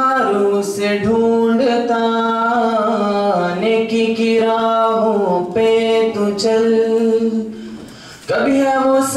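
A man sings solo into a microphone without accompaniment, holding long, drawn-out notes. He breaks off for a breath about eight seconds in.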